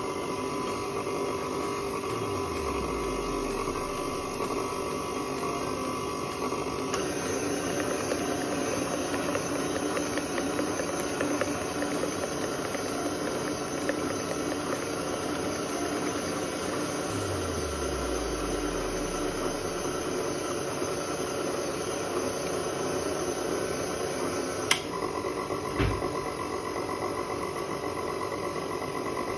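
KitchenAid stand mixer's motor running with a steady whine as its flat beater mixes thick chocolate brownie batter in the steel bowl. The tone shifts slightly about seven seconds in, and there are two short knocks near the end.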